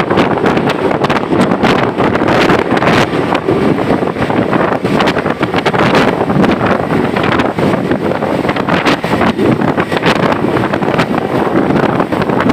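ALS intercity bus on the move: engine and road noise under heavy, gusty wind buffeting on the microphone.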